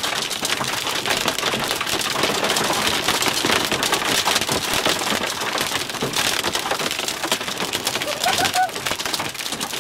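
Hailstones pelting a vehicle's roof and windshield, heard from inside the cabin: a dense, continuous clatter of hard impacts.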